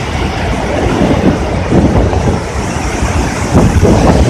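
Loud, steady rushing rumble of fast-flowing floodwater, without a break.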